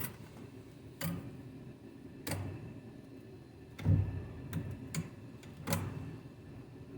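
Irregular clicks and knocks of metal transmission parts being handled and set in place during reassembly of a 727 automatic transmission, about seven in all, with one heavier thump about four seconds in.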